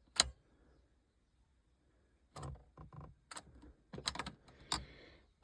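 Sharp clicks and light knocks from handling inside a car cabin: a single click, then after about two seconds a run of irregular clicks.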